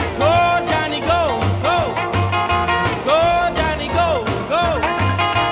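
Cassette tape playback from a Technics RS-M205 deck, taken straight from its line output: an upbeat rock-and-roll style song with a bouncing bass line and melody notes that bend up and down in pitch.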